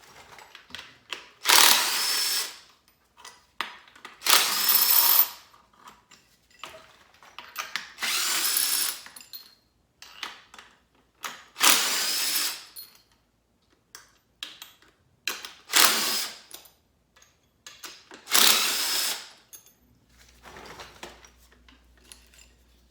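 Handheld power tool run in about six short bursts of roughly a second each, with small clicks and clinks of metal parts between them, typical of bolts being run out of an engine's water pump area.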